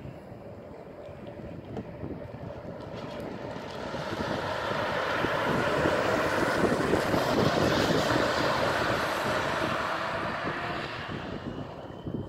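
Battery-electric Volvo truck with a refrigerated semi-trailer driving past. The tyre and rolling noise swells to a peak in the middle and fades as it pulls away, with no diesel engine note. Wind is heard on the microphone.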